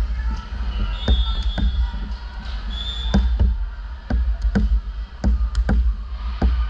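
A basketball bouncing repeatedly, irregular sharp bounces about every half second, with a couple of short high squeaks.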